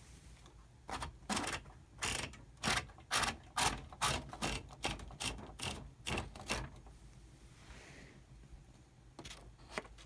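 A 1913 Hammond Multiplex typewriter's mechanism clicking and rattling in a quick, irregular run of about a dozen strokes while its sheet of paper is worked out of the machine, then two more clicks near the end.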